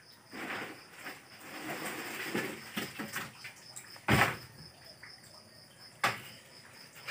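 Plastic tub of live freshwater prawns: rustling and scraping against the plastic, with a loud knock about four seconds in and a sharp click about two seconds later.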